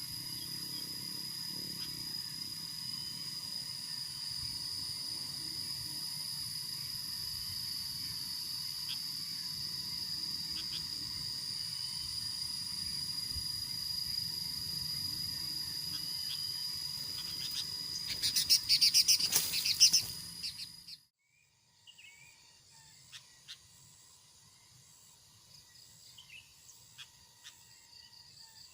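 Outdoor ambience with a steady high-pitched insect drone. Near the end comes a loud, rapid series of sharp bird calls, after which the sound cuts off abruptly to a quieter background with scattered short bird chirps.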